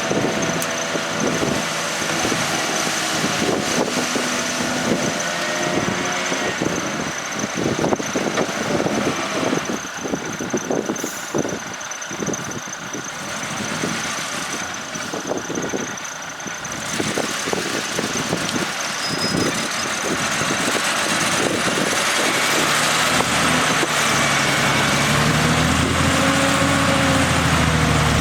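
Heavy diesel earthmoving machinery running, with a lot of clanking and rattling through the first half. From about two-thirds of the way in, a deep engine note gets steadily louder, as under load.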